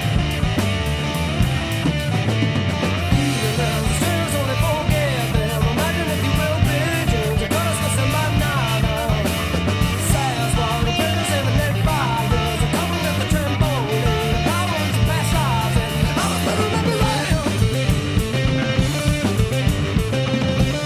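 Rock song on electric guitar and drum kit, with a steady drum beat and bending guitar lines.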